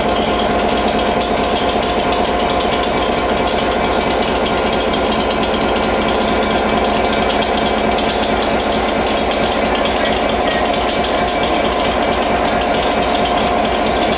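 Class 67 diesel-electric locomotive's EMD two-stroke V12 diesel engine running at standstill, heard up close as a loud, rapid, even throbbing with a steady whine over it.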